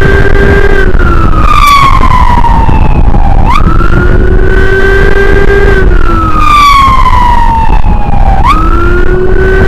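Emergency siren wailing in a repeating cycle about every five seconds: a quick jump up in pitch, a short hold, then a long slow fall, over a constant loud low rumble of wind and road noise from the moving motorcycle.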